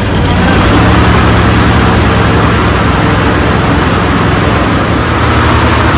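John Deere D130 lawn tractor engine running steadily at full throttle. It grows louder and noisier about half a second in, then holds steady.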